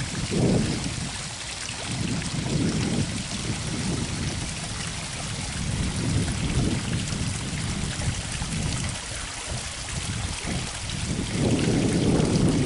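Gusty wind rumbling on the microphone, rising and falling and strongest at the start and near the end, over a steady outdoor hiss.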